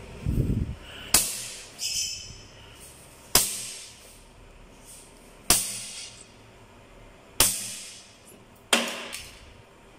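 Homemade PCP air gun tank dumping its charge through its valve: five sharp pops of compressed air about two seconds apart, each trailing off in a short hiss. A low rumble comes in the first second.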